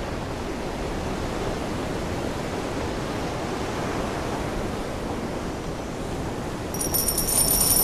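Steady rain falling on a wet wooden ship's deck, an even hiss. About seven seconds in, a high, shimmering ringing like small bells starts.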